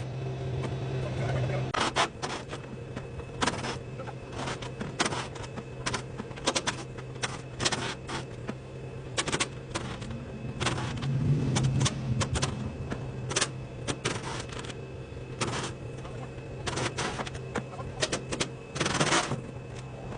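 Irregular sharp metal clanks and clicks from steel silo panels and bolts being worked loose, with a denser rattle near the end, over the steady hum of a running engine from the crane or lift.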